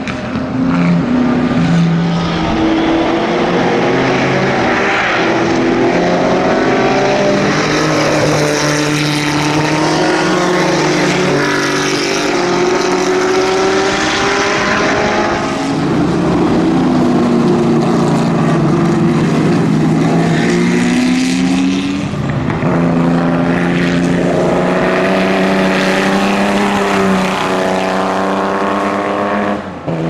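Historic racing car engines at full throttle on track, several cars in turn, each climbing in pitch as it accelerates and dropping at each gear change. Around the middle, a Ford GT40 V8 and a Jaguar E-type race past together.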